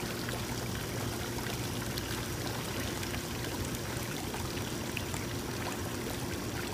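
Dimension One Amore Bay hot tub with its jets running: water churning and splashing steadily over a steady pump hum.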